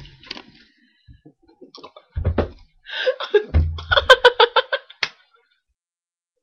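A short low sound about two seconds in, then a girl laughing in a quick run of "ha" bursts that stops about five seconds in.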